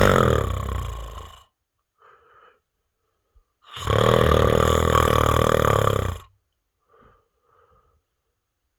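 A man snoring: two long, loud snores with a fluttering low rattle, the first fading out about a second and a half in and the second running about two and a half seconds from near the middle, with faint breaths between.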